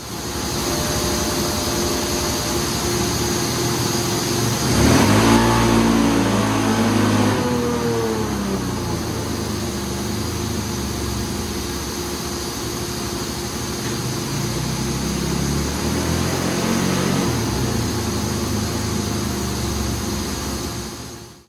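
2019 Polaris Sportsman 570's single-cylinder engine running under load on a chassis dyno. It revs up sharply about five seconds in, loudest there, then keeps running hard and fairly steady through a full-throttle dyno pull.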